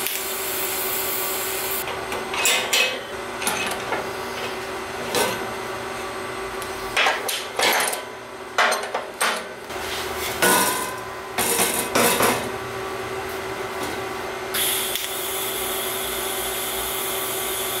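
A TIG welding arc hisses steadily on a titanium exhaust flex joint, stops, and is followed by metal clanks and knocks as the clamp and pipe are handled on a steel fixture table. About fifteen seconds in the arc starts again with a steady buzzing hiss as the joint is tack-welded.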